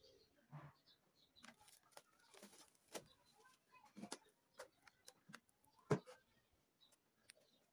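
Faint handling sounds of a plastic bowl covered in cling film being lifted and tilted on a wooden table: scattered light rustles and small knocks, the sharpest knock about six seconds in.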